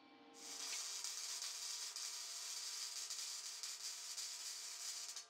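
MIG welding arc crackling and sizzling steadily as a bead is laid on square steel tube, from a PowerMig 210 wire-feed welder. It starts about half a second in and cuts off sharply at the end.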